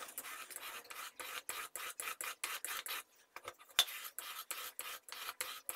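Chisel blade being honed on a sharpening stone: quick, even back-and-forth rasping strokes, several a second, with a brief pause about three seconds in.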